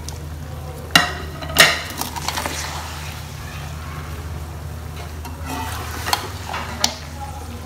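Raw mutton pieces frying and sizzling in oil with onions in a steel pot as they are stirred with a metal slotted spoon, which clacks sharply against the pot about a second in and a few more times later. A steady low hum runs underneath.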